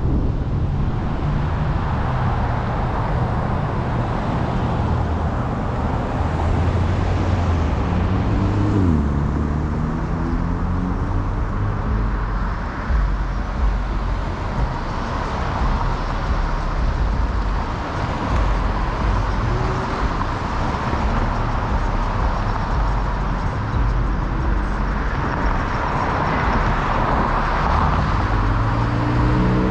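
Steady street traffic: cars passing close by with engine rumble and tyre hiss. About nine seconds in, one vehicle's engine note drops in pitch as it goes past, and another engine note rises near the end.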